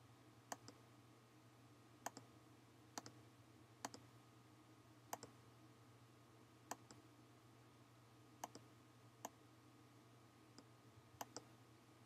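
Faint computer mouse button clicks, about ten of them at irregular intervals, many heard as a quick press-and-release pair, over near-silent room tone.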